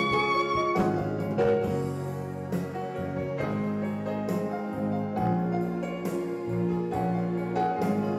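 A soprano saxophone holds a note that ends under a second in. An electronic keyboard then plays on its own in a piano sound, a string of struck notes and chords.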